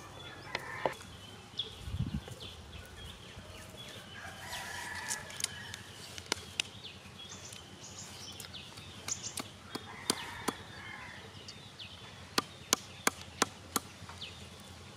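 Chickens clucking in the background. Near the end come five sharp wooden knocks in quick succession, about three a second, as bamboo tubes are handled.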